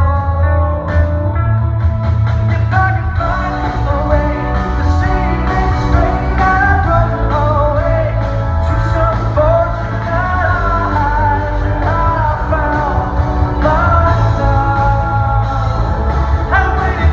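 Live rock band playing, with a male lead vocal singing the melody over bass, guitar and drums, recorded in a concert hall.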